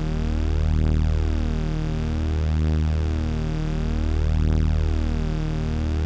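Amiga demo soundtrack music: a low, sustained synthesizer drone with a wavering, beating shimmer in its overtones, swelling and ebbing about every two seconds.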